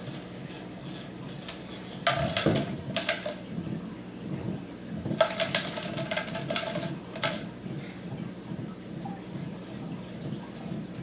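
Glass jar with a metal lid rolling and clinking across a hardwood floor as a kitten bats it, in two bursts of clatter about two seconds and five seconds in. A steady low hum runs underneath.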